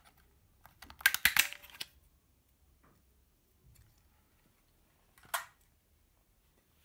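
Hard plastic clicking and snapping as the battery cover comes off a toy RC car's plastic 27 MHz transmitter, worked with a screwdriver: a quick cluster of clicks about a second in, then one single sharp click about five seconds in.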